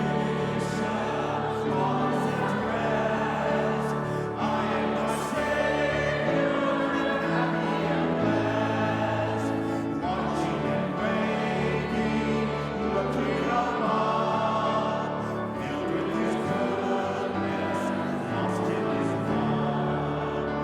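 Church congregation singing a hymn with a choir and instrumental accompaniment, in steady sustained chords.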